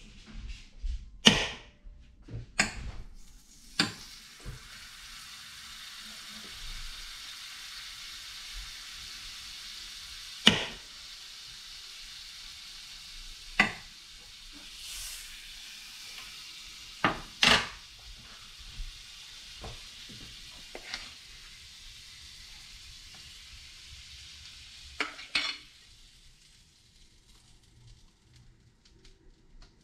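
Food sizzling in a frying pan, with occasional sharp clinks of a utensil against the pan as it is stirred. The sizzle fades out near the end.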